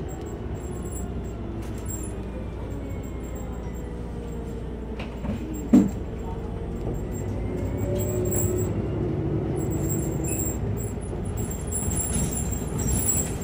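Interior of a New Flyer Xcelsior XDE40 diesel-electric hybrid bus under way: steady running noise with a faint electric drive whine that falls and then rises in pitch. A single sharp knock comes about six seconds in.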